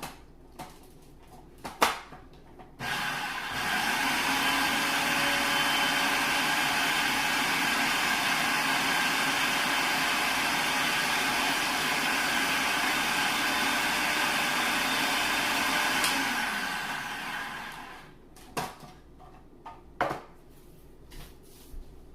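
Food processor grinding Oreo cookies into crumbs: a click, then the motor starts about three seconds in, runs steadily with a whine for about thirteen seconds and winds down. A few knocks follow near the end.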